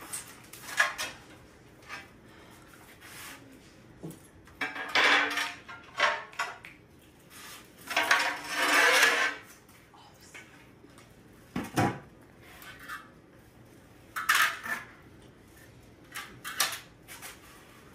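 Steel notched trowel scraping and spreading thinset tile mortar in separate strokes, with clinks of metal against the mortar bucket. The longest scrape comes about eight seconds in, and there is a single sharp knock about twelve seconds in.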